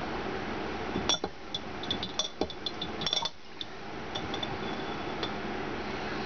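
A metal fork clinking against a glass jar of pickled jalapeños as slices are fished out: a quick run of light clinks about a second in, then a couple of fainter ones later, over a steady background hiss.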